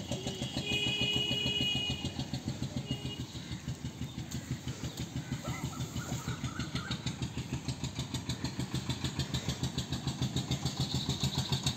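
An engine runs steadily in the background with an even thudding beat, about six or seven pulses a second.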